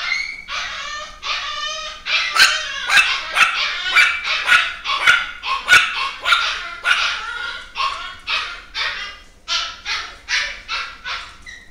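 A dog yapping over and over in short, high-pitched barks, about two to three a second.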